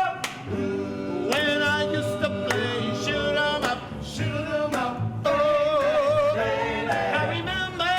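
Street musicians performing a song: a singing voice holding long notes with vibrato over lower sustained accompanying notes.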